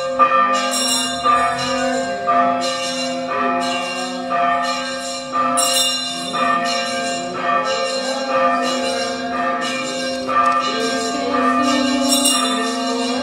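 Church bells ringing in a quick, even run of strokes, about two a second, the tones ringing on between strokes.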